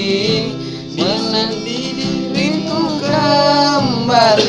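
A boy singing while strumming chords on an acoustic guitar; his voice glides through long held notes over the strumming.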